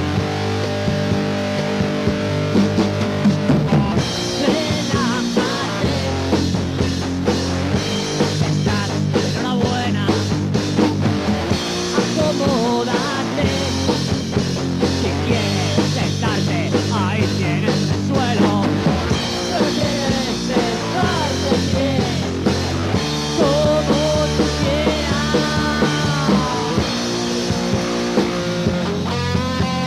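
Punk rock song played by a band: electric guitars, bass guitar and drum kit at a steady, driving loudness.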